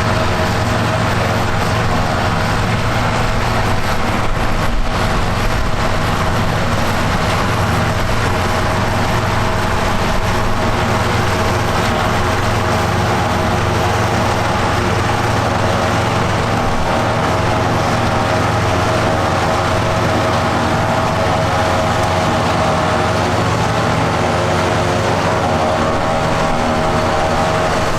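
Vintage farm machinery running steadily: a constant engine drone with a steady hum, holding the same speed throughout.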